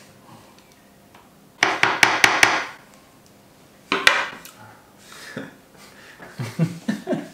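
Knife chopping dark chocolate on a wooden cutting board: a quick run of about six chops about a second and a half in, then a single knock about four seconds in.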